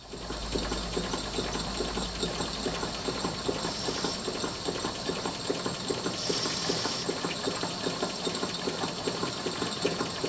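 Three Cotswold Heritage model steam engines running together on live steam: a rapid, even beat of several strokes a second over a steady steam hiss, which swells briefly twice. The left engine's valve timing has been set to admit steam just before top dead centre, so all three run smoothly.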